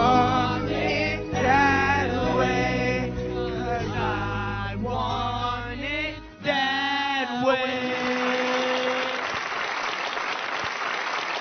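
Several voices singing a pop ballad over backing music. The backing drops out about six seconds in, a last note is held, and applause follows.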